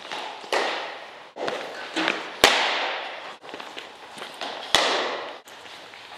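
Cricket balls cracking off bats and smacking onto the pitch matting and netting, a string of sharp knocks, each ringing out in the echo of a large indoor sports hall. The two loudest cracks come about halfway and about three-quarters of the way through.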